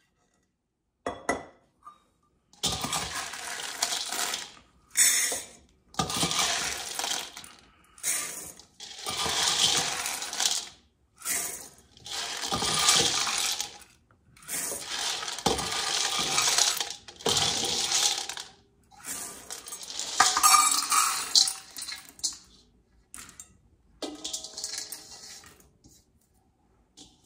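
Dry pinto beans rattling as they are scooped with a stainless steel measuring cup and poured between a stainless steel mixing bowl and a glass bowl, in repeated bursts a second or two long with short pauses between scoops.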